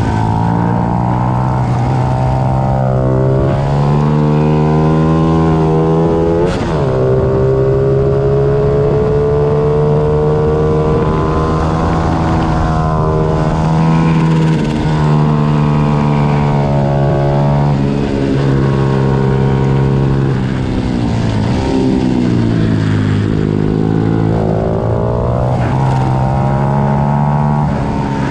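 Several pit bike engines racing together, their overlapping notes rising and falling as the riders accelerate and back off through the corners. A single sharp click stands out about six and a half seconds in.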